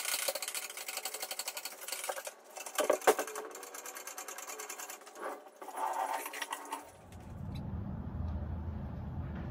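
Hydraulic engine hoist being worked, heard as fast, even mechanical clicking and clatter with a loud clank about three seconds in. About seven seconds in it gives way to a low steady rumble.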